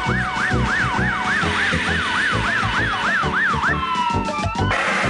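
Fire engine siren wailing in fast rises and falls, about three a second, over a steady low beat. The wail stops a little over halfway through and gives way to a brief falling tone.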